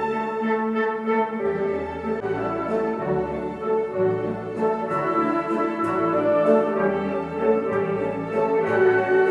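Orchestral classical music played back over a Viva Audio Master Horn loudspeaker system: sustained notes over a moving bass line.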